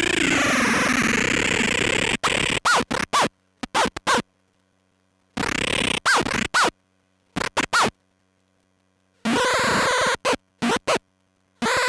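Fuzzed feedback drone from a Lost Soul feedback looper into a Sketchy Sounds Gorantula sub-octave synth fuzz, running with sweeping tone for about two seconds. It is then chopped by a Krackatone momentary switch into stuttering bursts with dead silence between them, some bursts carrying short pitch swoops. The drone runs steadily again near the end.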